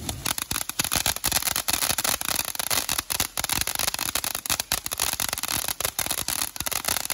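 A ground fountain firework sprays sparks with a steady hiss and a dense, continuous run of quick crackling pops.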